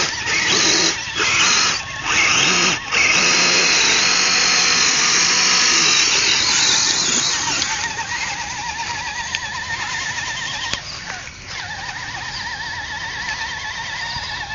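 Electric motor and gears of a radio-controlled scale crawler truck whining under throttle as its wheels spin in mud. The whine cuts out briefly three times in the first three seconds as the throttle is let off. After about seven seconds it drops to a quieter, wavering whine.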